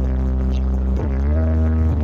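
Electronic dance remix played very loud through a large stacked sound system with multiple subwoofers, its deep bass heavy and sustained under held synth notes. About a second in, a note dips and then bends upward in pitch.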